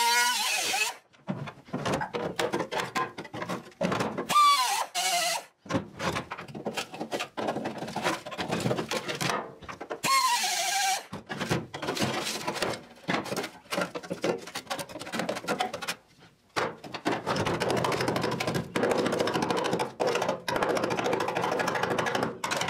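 Pneumatic cut-off tool cutting into rusty body steel of a 1972 Triumph GT6 shell in short bursts, its whine sagging in pitch as the wheel bites, with sharp metallic knocks in between. Near the end there is a denser, rough scraping noise.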